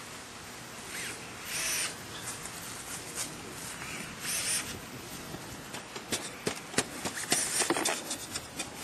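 Fast-forwarded scraping and crunching of hand digging in soil around a wooden fence post, with a run of sharp clicks and knocks in the second half.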